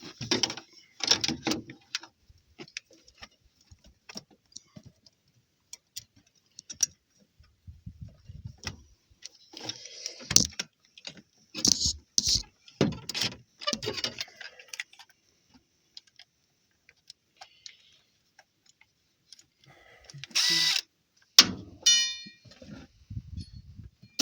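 Metal hand tools and sockets clinking and clicking while bolts are worked on a car engine, with one short loud burst near the end.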